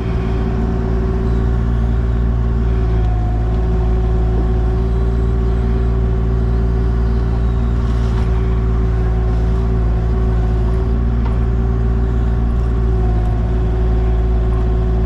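Excavator's diesel engine running steadily at working revs, with a steady tone riding over the engine note, while digging topsoil.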